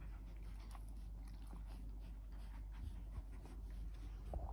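Four-week-old Australian Shepherd puppies playing and mouthing, faint soft scuffling and chewing with a few small clicks, and a brief louder sound right at the end.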